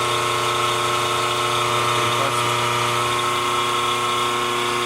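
Phase-converter electric motor running with a steady hum, its blown 45 µF capacitors just replaced.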